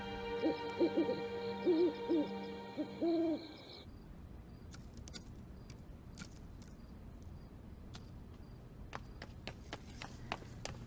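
An owl hooting several times in short, wavering hoots over soft sustained music. The music fades out about four seconds in, leaving faint scattered clicks.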